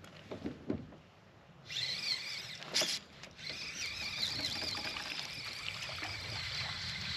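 Fishing reel being cranked to bring in a fish: a steady whirring that starts about two seconds in, with a brief sharp noise about a second later.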